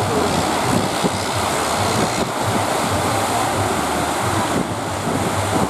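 Heavy surf breaking and washing on the shore, with wind buffeting the microphone, a steady loud rush of noise.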